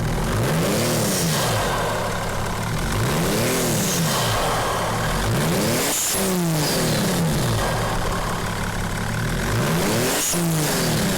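Mercedes-Benz S320 CDI straight-six diesel revved up and back down with the car standing still, about four times. There is an exhaust leak at the manifold by the front cylinder, the cause of the squeak or whistle heard under hard acceleration.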